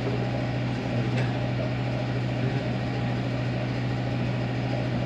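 A steady low mechanical hum, with a faint click about a second in.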